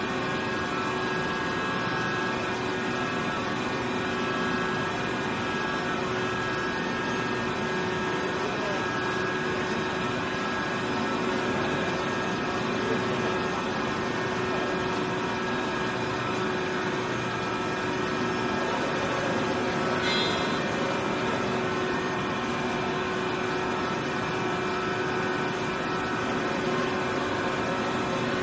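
QKF1600 bead-ring cutting machine for large tyres running: a steady motor hum with several constant tones. A brief higher-pitched sound comes about twenty seconds in.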